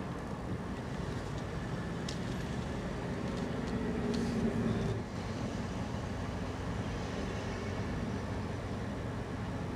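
Car engine idling, heard from inside the cabin as a steady low hum. It rises for a second or so about four seconds in as the car rolls forward, then drops back abruptly. Two faint clicks come at about two and four seconds in.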